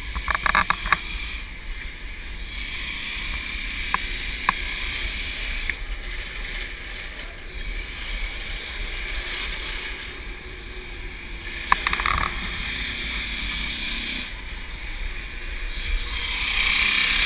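Steady rushing noise of flood-drying air movers running, with a few sharp knocks and clicks, and it grows louder near the end.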